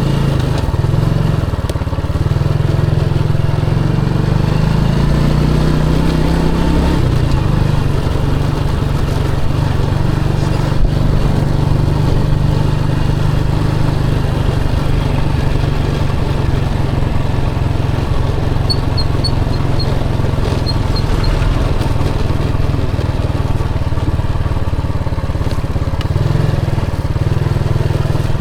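Motorcycle engine running while riding, its pitch rising over the first several seconds as it speeds up, then holding steady.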